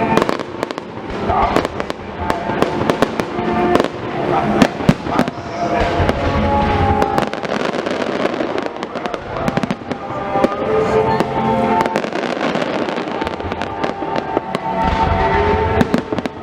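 Aerial fireworks bursting in rapid succession, many sharp bangs and crackles overlapping, over music with long held notes.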